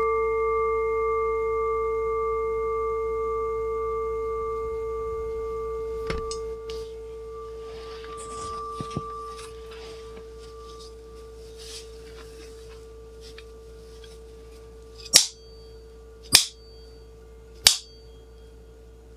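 A struck bell's ring fading slowly, several steady tones sounding together, the lowest the strongest and the longest-lasting. Near the end come three sharp clicks about a second apart, each followed by a brief high ring.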